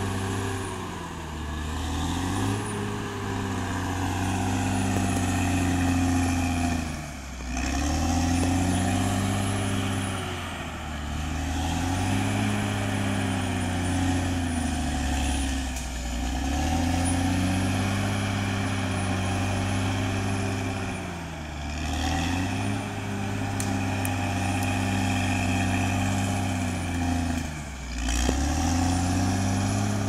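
Caterpillar D6R XL bulldozer's diesel engine working hard, its pitch sagging every few seconds as it lugs under load and then picking back up. A thin high whine rises and falls with it.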